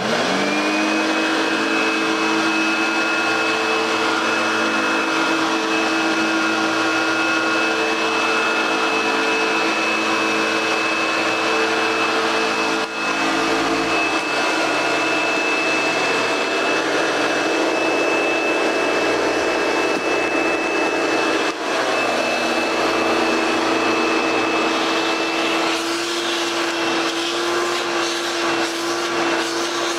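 Circa 1970 Hoover Dial-A-Matic upright vacuum cleaner switched on, its motor whining up to speed within about a second. It then runs steadily with a high whistle over its hum, and the tone shifts slightly about halfway and again near the end.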